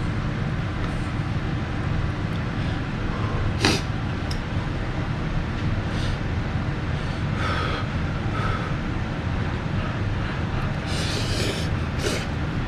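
Steady low rumble, with one sharp click about three and a half seconds in and a few short hissy noises in the second half.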